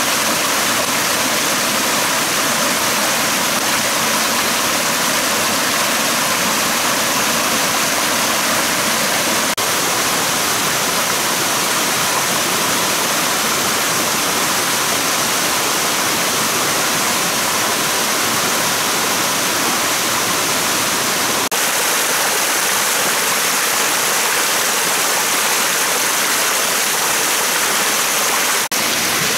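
Water rushing steadily over a rocky stream cascade and small waterfall.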